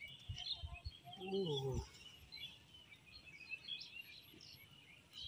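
Small birds chirping and twittering throughout, with a short falling vocal sound from a man about a second in and a few soft low knocks near the start.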